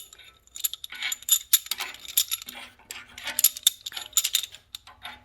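Metal studs being unscrewed by hand from a Honda B16A engine block and handled: a run of light metallic clinks, each with a short high ring.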